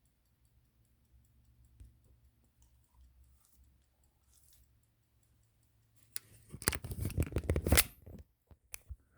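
A few seconds of faint low hum, then a quick run of loud clattering knocks and rubs close to the microphone lasting about two seconds, with one more knock after a pause.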